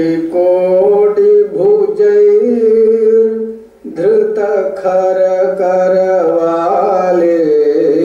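A man singing a slow melody in long held notes, breaking off briefly about four seconds in before the next phrase.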